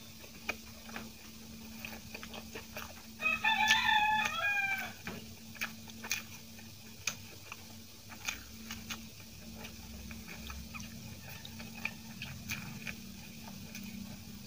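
Soft mouth and chewing sounds of eating idli by hand, with small scattered clicks. About three seconds in, a loud pitched animal call, such as a rooster crow, rings out once for under two seconds and is the loudest sound.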